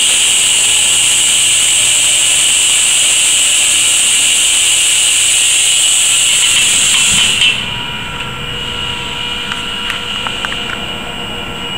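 Plasma cutting torch hissing steadily as it cuts through a steel pipe, cutting off suddenly about seven and a half seconds in at the end of the cut. After that a quieter machine hum with faint steady tones and a few light clicks.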